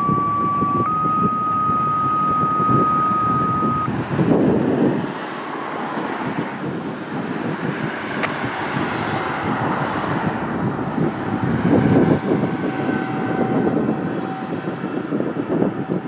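Federal Signal 2001-SRN rotating electromechanical warning siren sounding during a monthly test, heard from a distance with wind on the microphone. A steady high tone steps up slightly about a second in and drops out about four seconds in. Under it is a rough, continuous drone that swells and eases slowly as the horn turns.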